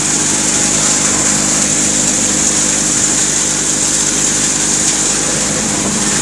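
Tractor-driven multi-crop combine thresher running steadily while threshing groundnuts. It makes a constant engine-and-machinery drone with a strong high hiss from the threshing and cleaning.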